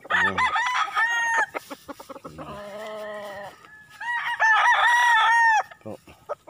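Gamefowl roosters crowing: two loud crows of about a second and a half each, one at the start and one near the end, with a lower, steadier call between them.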